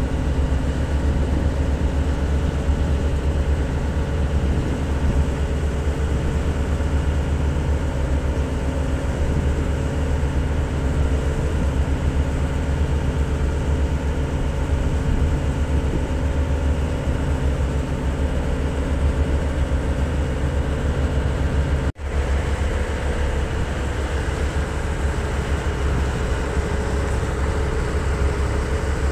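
Motor yacht's engines running steadily under way, a deep drone mixed with the rush of the wake and spray along the hull, with a momentary break about three-quarters of the way through.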